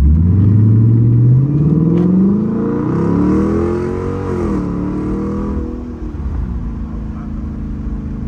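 Chrysler 300S's Hemi V8 accelerating through a mid-muffler and resonator delete with Carven R-Series mufflers, loud, its pitch climbing for about four seconds, then easing off and settling into a steadier rumble.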